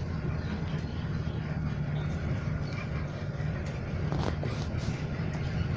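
Steady low engine hum and road noise of a moving vehicle, heard from inside its cabin as it drives.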